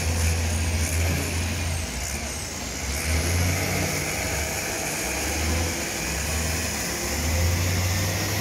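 A low, steady engine rumble that swells and eases every second or two.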